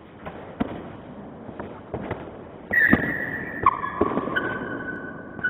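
Sword blades clashing in a sparring bout: a string of sharp knocks and clicks, then several harder blade-on-blade strikes from about two and a half seconds in. Each of these leaves the blade ringing with a clear metallic tone that holds for a second or more.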